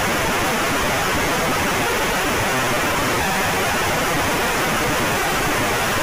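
Emergency alert alarm sound made of loud, harsh static-like noise, an unbroken wall of hiss at a steady level with no clear tone.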